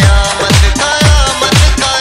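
Background dance music with a steady beat of deep electronic kick drums, about two to three a second, under a sustained melody.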